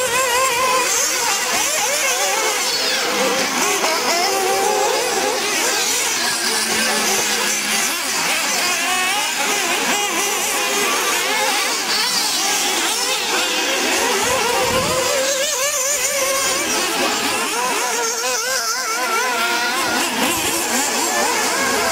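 Several 1/8-scale nitro RC buggy engines racing together, a high-pitched whine that wavers up and down as the cars accelerate and brake.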